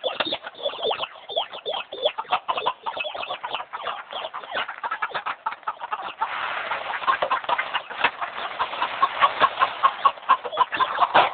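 Domestic chickens clucking, many short calls overlapping. From about six seconds in a steady hiss joins them, and near the end comes a run of evenly spaced clucks.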